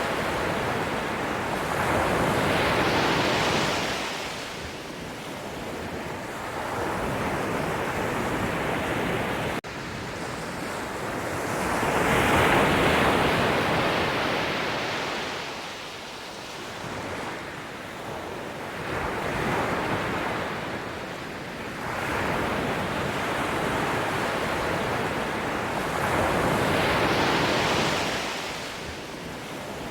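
Sea waves breaking and washing on the shore, the surf swelling and fading in slow surges every several seconds. A brief sudden dropout about ten seconds in.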